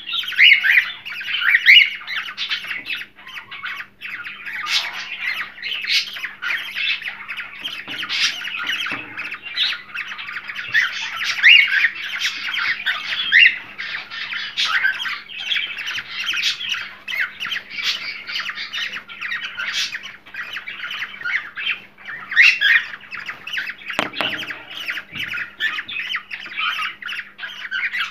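Cockatiels chattering and squawking without pause, a dense run of short, rising and falling calls: the breeding-stimulation calling played to pet cockatiels to encourage them to mate.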